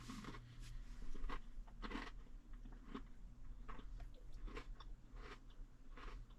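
A person chewing an Oreo sandwich cookie with faint, irregular crunches roughly every half second to second.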